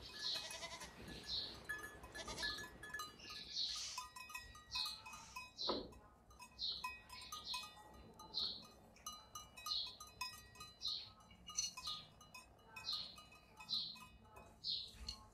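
Short high-pitched bird calls repeating about once a second, over faint ringing tones.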